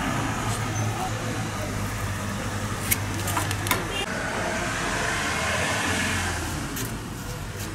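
Street traffic noise: a steady low engine hum with a vehicle passing about halfway through, and a few light clicks.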